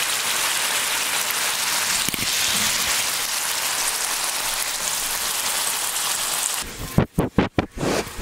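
Ground chorizo sizzling and popping in a hot frying pan, picked up close with a steady, dense crackle. About six and a half seconds in it cuts off and gives way to a quick series of loud, close noises a few times a second.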